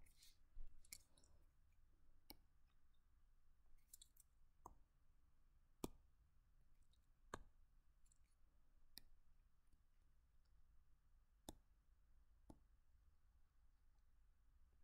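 Sharp single clicks of a computer mouse button during drawing, about eight of them at irregular intervals a second or two apart, over near-silent room tone with a faint low hum.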